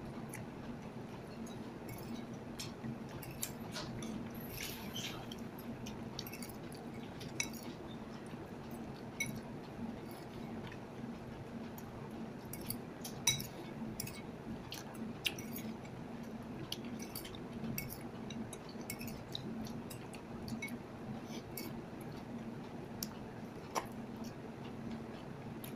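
A metal spoon clinking and scraping in a ceramic bowl while eating, with irregular light clicks and chewing; one sharper clink about halfway through. A steady low hum runs underneath.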